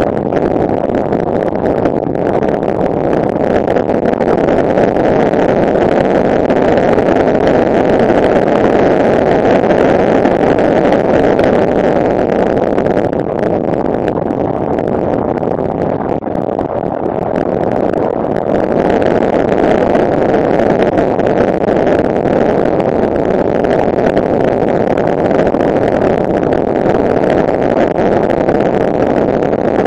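Freshly rebuilt Honda NTV600 V-twin engine running steadily at cruising speed, heard with the wind and road noise of the moving motorcycle; the sound eases briefly about halfway through.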